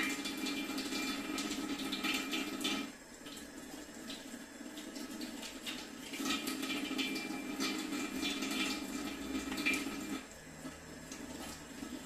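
Kitchen tap running as a raw chicken is rinsed under it. The water shuts off about three seconds in, runs again from about six seconds and shuts off near ten seconds.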